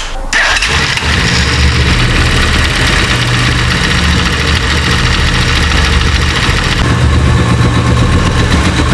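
Italika Z200 motorcycle's single-cylinder engine idling steadily, with a loud mechanical noise from the right side of the engine near the clutch, traced to a faulty clutch-assembly part.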